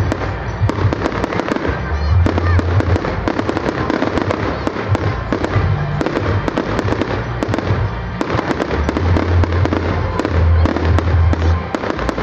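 Aerial firework shells bursting and crackling in a rapid, continuous barrage of bangs, over music with a steady bass line.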